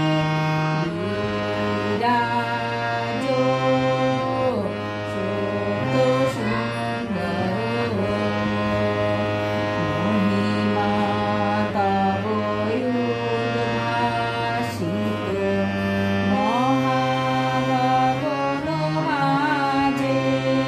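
Background music: a song whose melody moves in long held notes that slide between pitches, over a steady low accompaniment.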